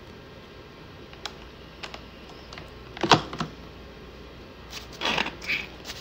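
Hard plastic clicks and clacks as a HiBREW capsule coffee machine's capsule adapter is handled and pulled out. Two light clicks come first, then a loud clack about three seconds in, and a short rattling clatter about five seconds in.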